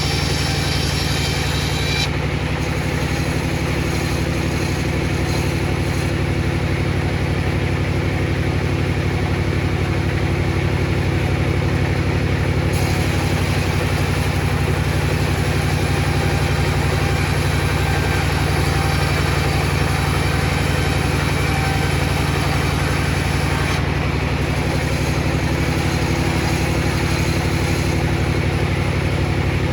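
Table saw running steadily: a loud, even motor hum with no break, with the higher hiss shifting a few times.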